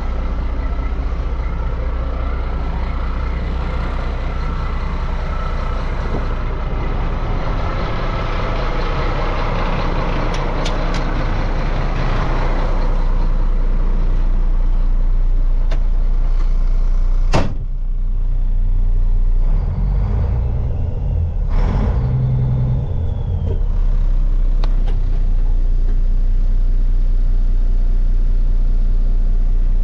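1994 Mack CL613 truck tractor's diesel engine idling steadily. A sharp knock a little past halfway and a short run of thumps and rattles soon after break over the idle.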